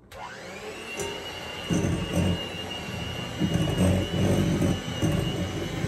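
Electric hand mixer switched on: its motor whine rises quickly to a steady high pitch. From about a second and a half in, the beaters churn unevenly through thick, rather dry gingerbread cookie dough that has just had water added.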